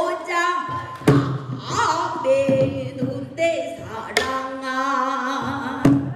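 A woman singing pansori in a strong voice with long, bending held notes, accompanied by three sharp strikes on a buk barrel drum, the last near the end.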